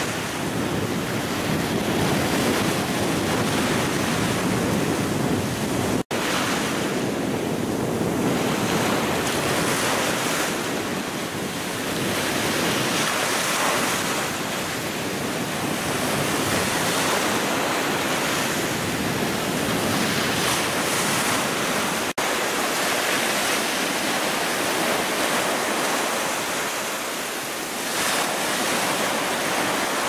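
Small Gulf of Mexico waves breaking and washing up a shelly sand beach: a continuous rushing surf that swells and eases as each wave comes in. Two brief dropouts, about six and about twenty-two seconds in, where clips are joined.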